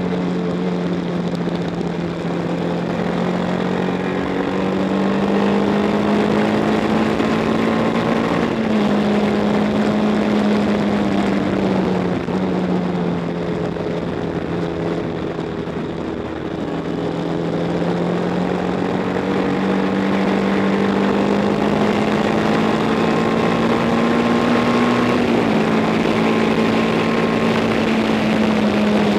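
A 1962 Matchless G50's single-cylinder four-stroke racing engine at full racing speed, heard from a camera mounted on the bike. Its note climbs and falls as the rider accelerates and backs off through the corners, with abrupt jumps in pitch at three gear changes, about nine, twelve and twenty-five seconds in.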